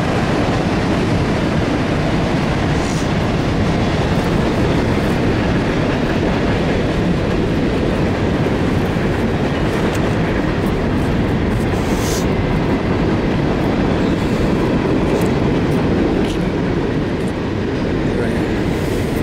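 Norfolk Southern freight train of open hopper cars rolling past: a steady rumble of wheels on rail, with a few faint clicks over it.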